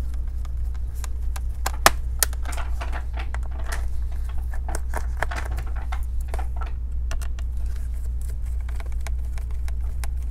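Small Phillips screwdriver backing out laptop bottom-cover screws: irregular small clicks and ticks of the bit in the screw heads and of the hands on the case, over a steady low hum.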